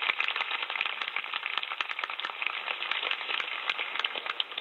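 A dense run of rapid, irregular clicks and crackles, many a second.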